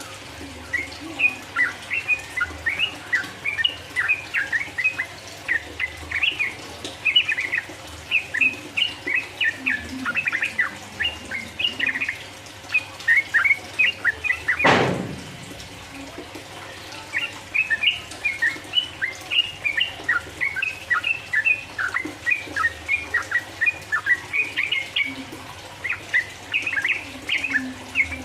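Yellow-vented bulbul (trucukan) singing a rapid, continuous run of short chirping notes. The song pauses for about two seconds halfway through, starting with a single sharp thump.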